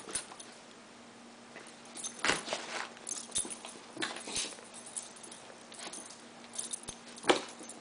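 Pembroke Welsh corgi puppy scrambling after a feather toy on carpet: short scattered scuffs, thumps and rustles, with the loudest thump near the end.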